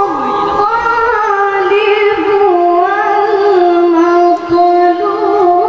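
A boy's voice chanting Quran recitation in the melodic tilawah style, holding long notes with wavering ornaments and a brief pause for breath about two-thirds of the way through.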